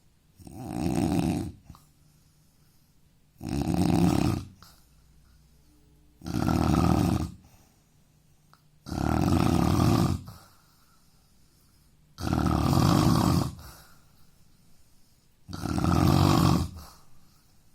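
A man snoring loudly: six long, rasping snores come about every three seconds, with quiet pauses between them.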